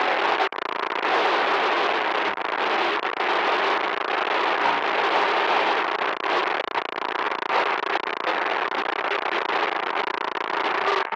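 Loud, harsh crackling static noise, steady throughout apart from a brief cut-out about half a second in.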